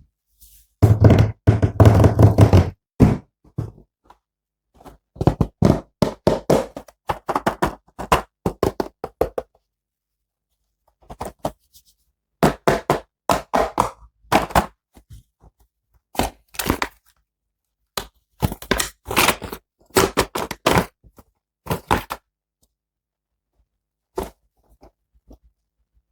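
Plastic toy packaging and figure parts being handled: rapid clicks, taps and dull thunks in four bursts of a few seconds each, with short pauses between and a few lone clicks near the end.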